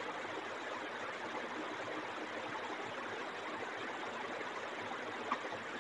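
Steady background hiss with no distinct events, and one faint click about five seconds in.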